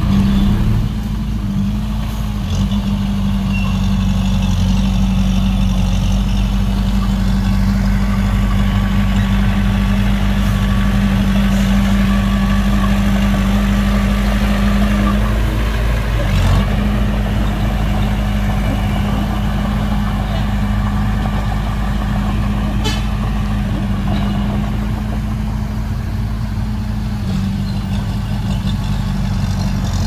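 Heavy diesel engine of earthmoving machinery running steadily with a constant low drone, which briefly wavers a little past halfway.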